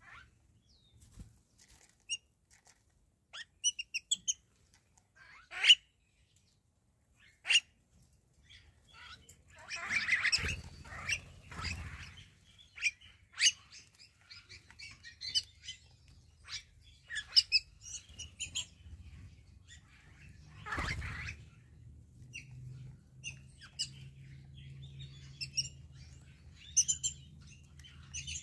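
A flock of wattled starlings and other birds at a feeding dish, giving short scattered chirps and calls, with a few sharp clicks and bursts of rustling or fluttering. A faint low hum joins in the last few seconds.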